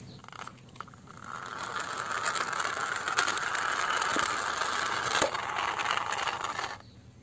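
Hard plastic toy car rolling across rough concrete as it is pulled along on a string: a steady rattling, grinding scrape of its plastic wheels with scattered clicks, starting about a second in and stopping abruptly near the end.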